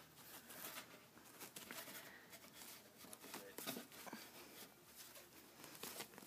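Faint, scratchy rustling and light taps of a folding mesh hamper's fabric as a cat claws and bats at a hand through it.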